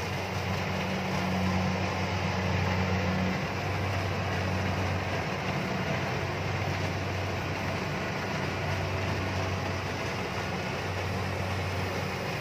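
Kubota DC-70 combine harvester running steadily while cutting ripe rice: a constant low engine drone under a broad mechanical hum from the machine.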